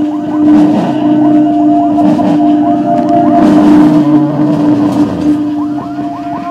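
Live improvised free-noise music: a steady droning tone with a higher held tone above it, under many short, repeated squealing pitch glides.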